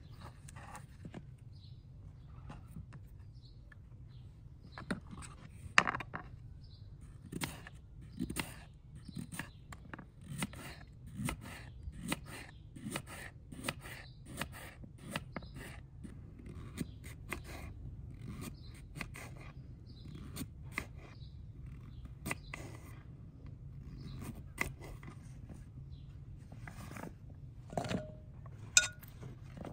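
Knife chopping carrots into rounds on a wooden cutting board: irregular sharp chops, about one or two a second, growing frequent after about five seconds. Near the end comes a louder clack with a short ring.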